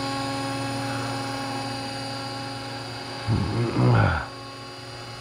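Scale RC model helicopter running, a steady whine of motor and rotor drive with several fixed tones. About three seconds in, a short louder sound with sliding pitch briefly rises over it.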